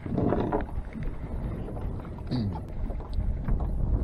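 Wind buffeting the microphone over choppy water lapping against the boat, a steady low rumble, with a brief louder burst right at the start and a few faint handling clicks.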